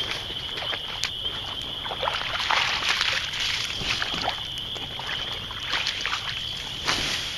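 Burning pine straw crackling, with many sharp irregular pops over a rushing hiss, as a runaway ground fire spreads. A steady high-pitched whine sits underneath.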